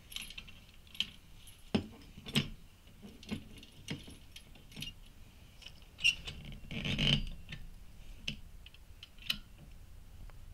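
Rusty chain links and a metal hook clinking and rattling against the steel winch post of a boat trailer: scattered single clinks, with a longer rattle about two-thirds of the way in.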